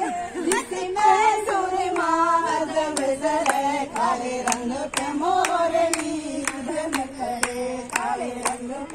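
A group of women singing a song together, with hand-clapping keeping a steady beat about twice a second.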